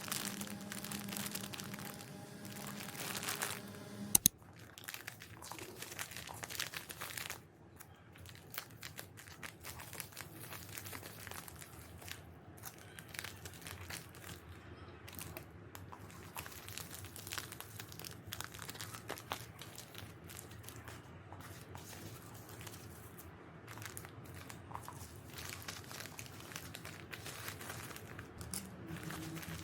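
Parcel packaging being unwrapped by hand: irregular crinkling and rustling with small clicks, and one sharp click about four seconds in.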